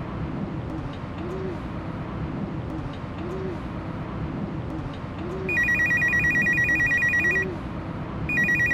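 Phone ringing with a rapid, high electronic trill: one ring of about two seconds starting a little past halfway, then a second ring that begins near the end.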